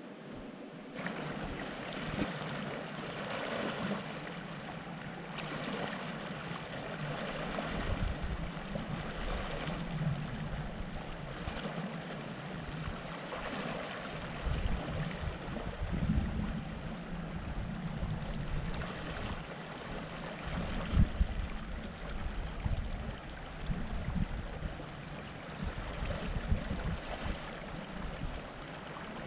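Shallow mountain river running over a riffled, rocky bed in a steady rush, with gusts of wind rumbling on the microphone from time to time.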